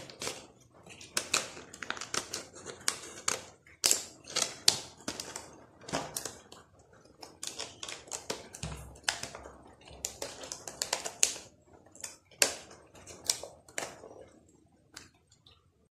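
Scissors cutting through a stiff clear plastic blister pack, with irregular sharp snips and crackles of the plastic that thin out near the end.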